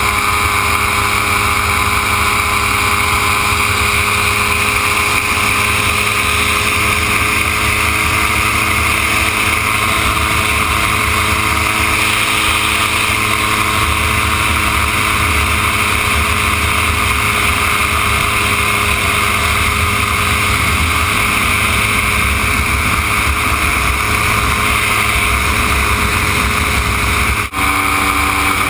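A Dominator gyroplane's engine and pusher propeller running steadily at cruise power in flight, heard from an onboard camera. There is a momentary dropout near the end, after which the pitch shifts slightly.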